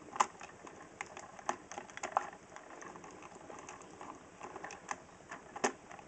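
Scattered light plastic clicks and taps as a Zip Zaps micro RC truck is pressed onto the charging dock of its remote controller, with a sharper click near the end.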